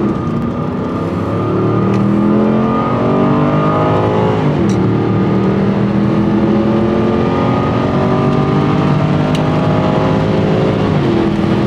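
Car engine heard from inside the cabin, accelerating hard. Its pitch climbs steadily, drops sharply as it shifts up about four and a half seconds in, climbs again and drops with another upshift near the end.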